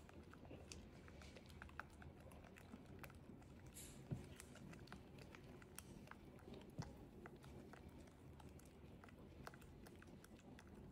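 Faint, scattered small clicks and taps of handling, with two louder knocks about four and seven seconds in.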